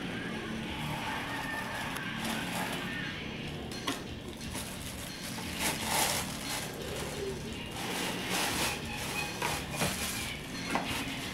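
Tissue paper crinkling and a cardboard shoebox being handled, in short rustles from about four seconds in.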